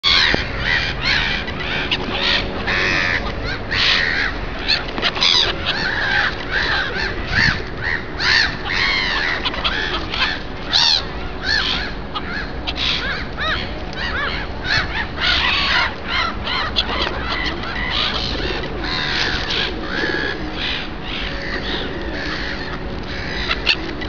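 A flock of black-headed gulls calling over and over, their short harsh calls overlapping without a break.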